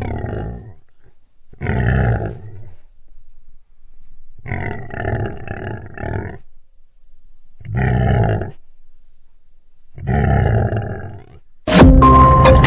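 A tiger roaring in a series of five long, moaning calls, each about a second long and two to three seconds apart, the middle one longer and pulsing. Near the end an intro jingle with a beat cuts in.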